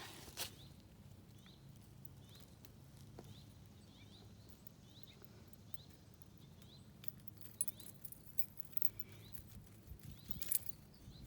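Quiet outdoor background with a faint, high, short chirp repeating about every three-quarters of a second, and a few sharp clicks in the last few seconds.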